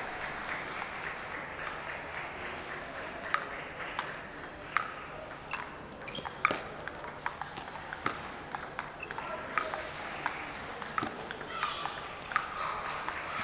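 Table tennis rally: the ball clicks off the paddles and the table in an even back-and-forth rhythm of about three hits every two seconds, starting about three seconds in.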